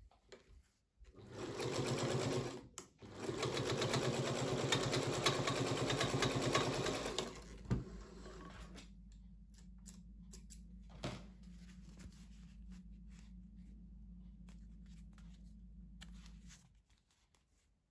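Singer 221K Featherweight sewing machine stitching through leather: a short run, a brief stop, then a longer run of about four seconds with a rapid, even clatter of the needle mechanism. After the sewing stops a faint steady hum with a few light clicks continues until near the end.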